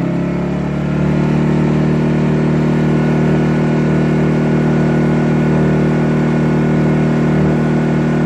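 Predator 2000 inverter generator's small single-cylinder four-stroke engine running steadily in eco mode, its note rising slightly in the first second and then holding even.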